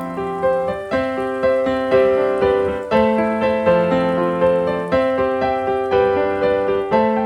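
Background music: a gentle piano melody with held chords.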